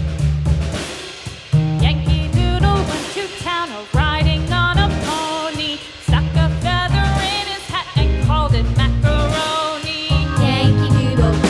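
Background music: a song with a wavering sung or played melody over a bass line and a steady drum beat.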